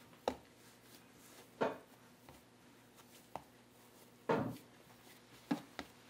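Seitan dough being kneaded by hand on a wooden cutting board: several dull thumps at uneven intervals as the dough is pressed down and turned, the loudest a little past the middle.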